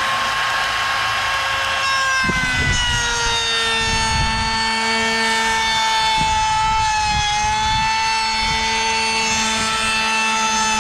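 Handheld trim router running at full speed with a steady whine; about two seconds in its pitch drops slightly under load as the bit cuts a groove in the wooden board, with rough cutting noise underneath for several seconds.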